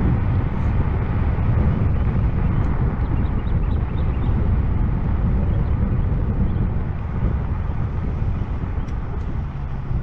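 Low, steady wind rumble on the microphone from riding a YUME X7 electric scooter along a road, easing a little near the end.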